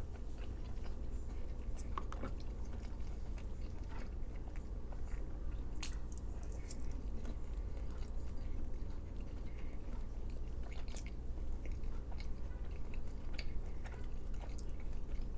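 A person chewing food close to the microphone, with scattered small wet mouth clicks and crunches, over a steady low hum.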